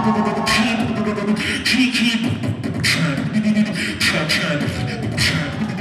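Beatboxing through a microphone and PA: a steady beat of vocal kick, snare and hi-hat clicks over a hummed low tone.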